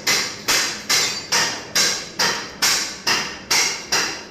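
Hammer striking steel in a steady, even rhythm of a little over two blows a second, each blow ringing briefly.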